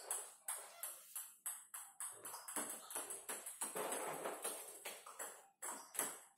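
Table tennis rally: the celluloid/plastic ball clicking off the bats and the table in quick succession, about three hits a second, with a short break about five and a half seconds in before the ball is in play again.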